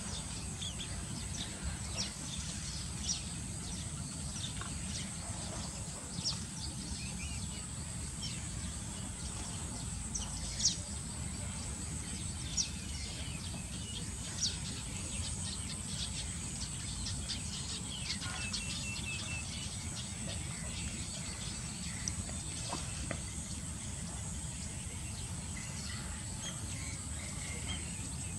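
Outdoor ambience: scattered short bird chirps, with a brief trill about two-thirds of the way through, over a steady high insect buzz and a low steady rumble.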